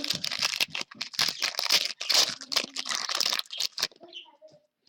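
Foil trading-card pack wrapper being torn open and crinkled in the hands, a dense crackle that stops about a second before the end.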